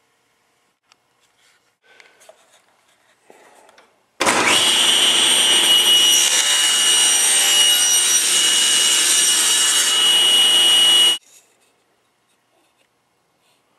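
Table saw running and cutting wood, a steady loud noise with a high-pitched whine. It starts suddenly about four seconds in and cuts off suddenly about seven seconds later.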